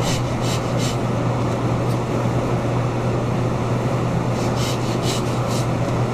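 Butcher's hand bone saw cutting through beef rib bones, in runs of quick back-and-forth rasping strokes near the start and again near the end. A steady low hum runs underneath.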